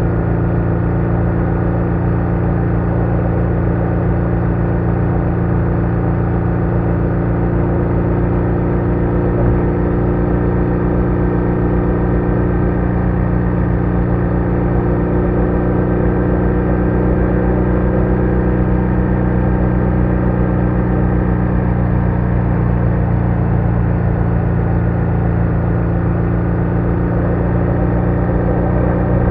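BMW R1200R boxer-twin engine running at a steady cruising speed: a constant drone whose pitch barely changes.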